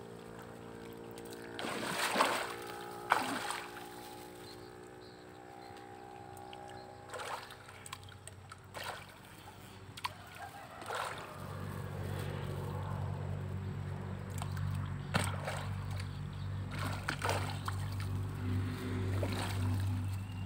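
Giant snakehead (toman) in a tarpaulin pond splashing and churning the water at the surface in sharp, irregular strikes, several of them close together about two and three seconds in. A steady motor-like hum runs beneath, growing deeper and louder a little past halfway.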